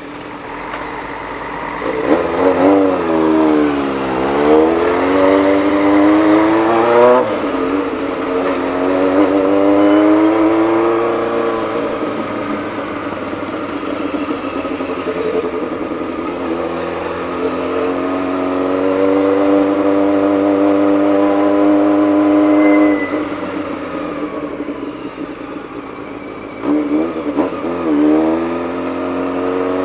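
Honda CBX 750 inline-four engine under way, its revs falling and climbing as the bike slows and accelerates. The revs drop suddenly late on and then rise quickly again.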